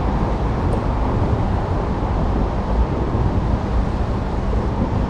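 Steady low rumbling background noise with no distinct event.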